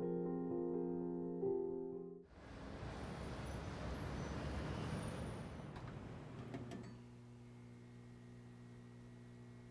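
Soft piano music that cuts off about two seconds in, replaced by a steady hubbub of city street noise for about four seconds. Near the end it gives way to a faint, steady low electrical hum.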